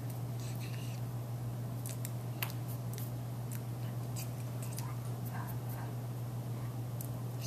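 Steady low hum with scattered faint clicks and taps from hands tapping and brushing together while signing.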